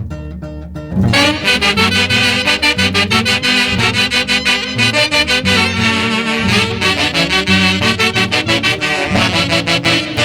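Band music in the Santiago festival style of the Mantaro Valley, led by saxophones and other wind instruments over a steady beat. A lighter opening gives way to the full band about a second in.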